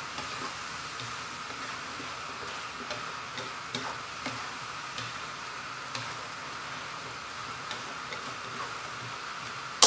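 Chicken liver adobo sizzling steadily in a nonstick pan on a gas burner while being stirred, with light scattered ticks of the spatula against the pan; the soy sauce and vinegar are being cooked down until nearly dry. A sharp clatter of utensil on pan comes at the very end.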